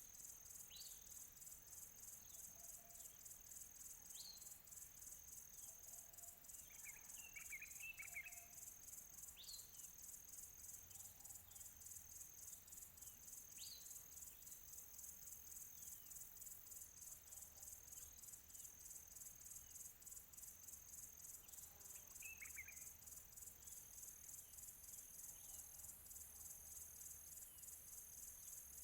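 Faint outdoor nature ambience: insects trill steadily in a fast, even pulse, high in pitch. Over them, birds give a handful of short sweeping chirps, with two brief flurries of chirps about seven seconds in and again near twenty-two seconds.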